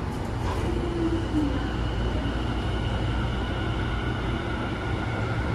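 Interior running sound of a Tobu 50000-series electric train pulling away from a subway station: a steady low rumble with a thin, high, steady whine from the motors over it.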